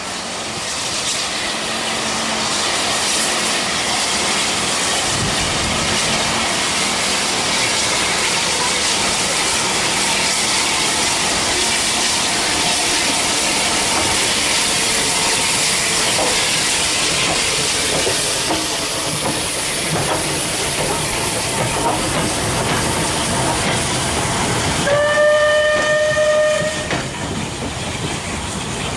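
Bulleid Battle of Britain Pacific steam locomotive No. 34081 moving off with steam hissing loudly and steadily from around its cylinders, with the rumble of its wheels on the rails coming in a few seconds in. Near the end, one steam whistle blast lasting about two seconds.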